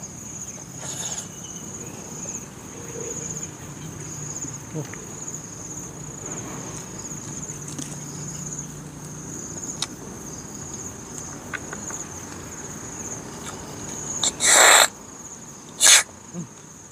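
Two loud slurps near the end as cooked freshwater snails in broth are sucked from their shells, a longer one followed about a second later by a short one. Behind them, a steady high-pitched trill of insects.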